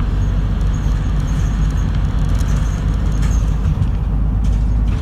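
Route bus running, heard from inside the passenger cabin: a steady low engine and road rumble with a few faint rattles.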